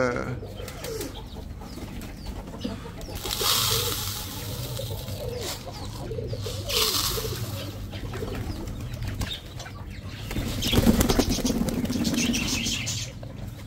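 Pigeons flapping their wings, loudest in a rapid flutter near the end, with low cooing. Mixed birdseed is poured from a tray into plastic feeders in two short rushing spells.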